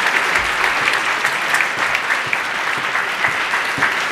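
Audience applauding steadily in an auditorium.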